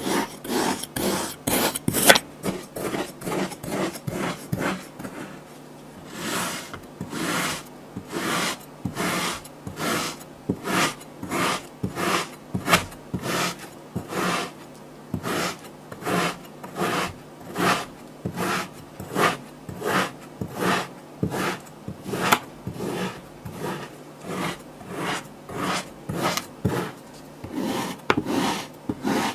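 Kinetic sand being worked with a tool in short, repeated strokes, about two a second, with a brief pause about five seconds in.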